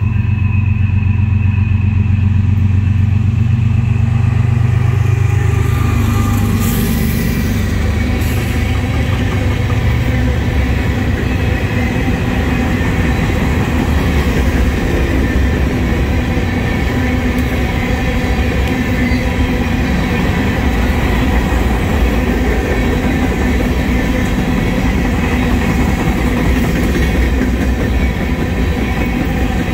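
Norfolk Southern diesel locomotives run past under power, their engines droning loudly for the first six seconds or so. Then the sand train's covered hopper cars roll by, the steel wheels rumbling steadily on the rails.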